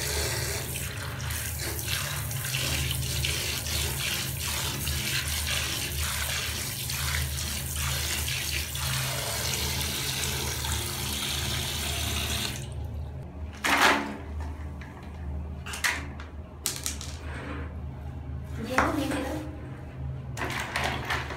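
A stream of tap water pouring into a plastic basin of water while hands rub and splash in it. The flow stops about thirteen seconds in, and a few separate splashes and knocks follow as plastic toy animals go into the water.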